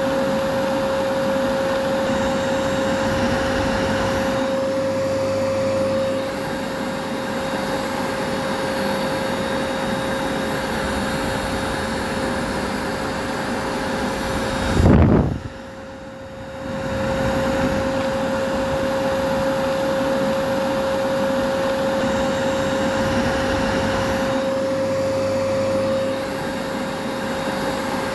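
Vacuum cleaner running steadily: an even rushing noise with a constant hum. About halfway through, a short loud low sweep drops in pitch, then the sound goes much quieter for about two seconds before rising back to full.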